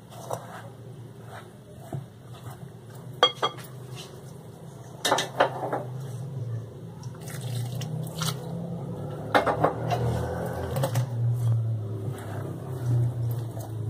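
Lukewarm water poured in a thin stream into flour in a glass mixing bowl, with a few sharp clinks of dishes against the glass.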